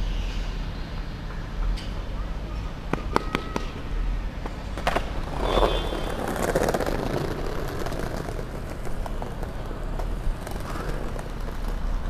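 Outdoor city ambience: a steady low rumble of traffic, a few sharp clicks about three to five seconds in, and a louder rush of noise with indistinct voices about five to seven seconds in.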